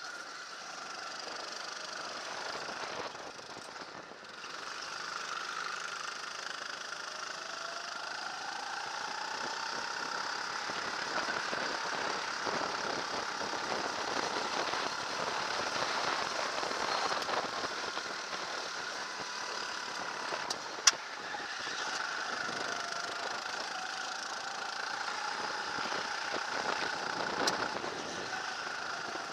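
Onboard sound of a Sodikart RT8 rental kart's engine running at racing speed, its pitch rising on the straights and dropping into the corners, over steady wind and road noise. A single sharp click sounds about two thirds of the way through.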